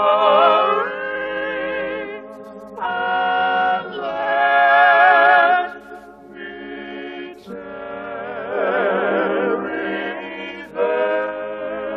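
Voices singing a church hymn in long held notes with vibrato, phrase after phrase, with short breaks between phrases.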